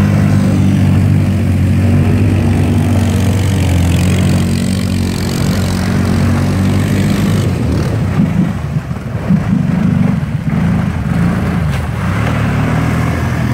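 Quad ATV engines running and revving as the machines churn through shallow water and broken ice. The engine note holds steady at first, then rises and falls unevenly in the middle stretch before settling again.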